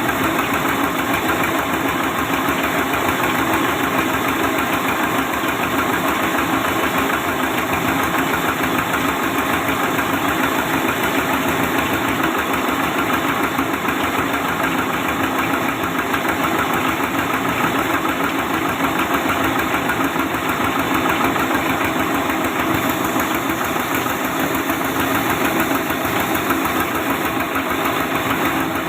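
Sawmill saw machine running steadily: a dense, unchanging mechanical drone with a fast, even pulsing underneath.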